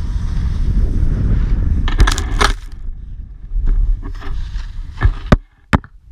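Wind rushing over an action camera's microphone while snowboarding, then about two seconds in a burst of thuds and scraping as the snowboarder falls backward into the snow. Softer sliding in the snow follows, then three sharp knocks near the end.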